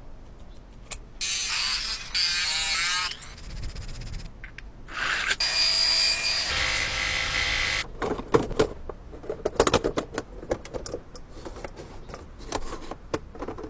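A small power tool running in two bursts of about two to three seconds each, the second with a steady high whine. Then a series of sharp clicks and knocks, as of parts being handled.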